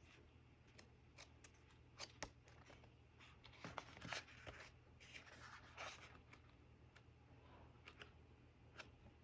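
Faint paper handling from a glossy photobook: a few light clicks and taps, then soft swishes of pages being turned about four and six seconds in.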